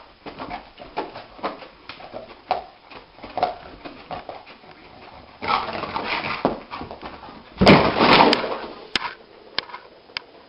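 A dog whimpering with small yips while it lies on its side paddling its legs. Then comes a burst of scrambling and a loud thump about three quarters of the way through as it jumps up, followed by a few light clicks.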